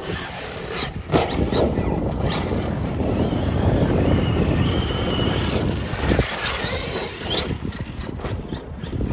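Brushless electric drive of a Losi DBXL-E 2.0 1/5-scale RC buggy whining as it accelerates, with its tyres churning dirt and gravel. There are sharp knocks about a second in and again about six seconds in.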